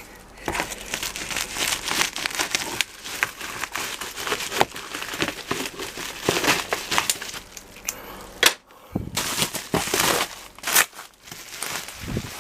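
Shipping packaging being handled and pulled apart by hand: irregular crinkling and rustling with scrapes. A sharp knock about eight and a half seconds in is the loudest sound.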